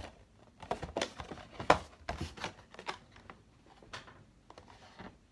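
Irregular light taps and clicks of paper and a cardboard saltine cracker box being handled as the paper is glued onto the box, most of them in the first half.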